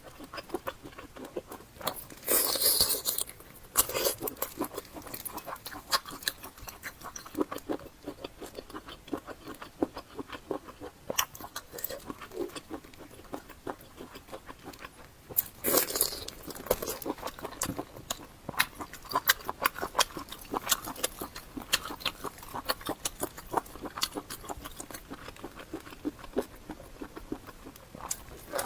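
Close-miked eating: steady chewing and biting, full of wet mouth clicks and crunches. There are two louder bursts, about two seconds in and about halfway through.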